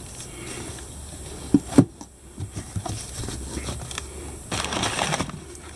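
A cardboard box being opened by hand: two dull knocks about a second and a half in, then a burst of crumpled kraft packing paper rustling near the end.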